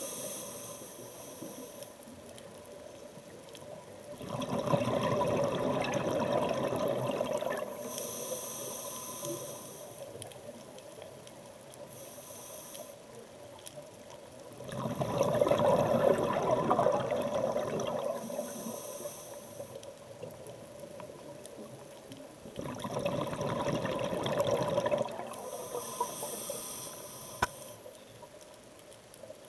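Scuba diver breathing through a regulator underwater: three long bubbling exhalations about nine seconds apart, with short high hisses of the regulator on each inhalation between them.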